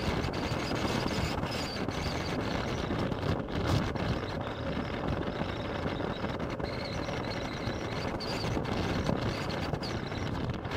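Honda CX500 liquid-cooled V-twin motorcycle cruising at steady speed, its engine running under a constant rush of wind and road noise.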